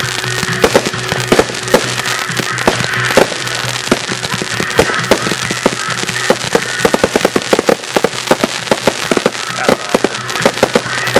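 Fireworks going off in rapid succession, many sharp pops and crackles that come thicker and faster in the second half, with music playing underneath.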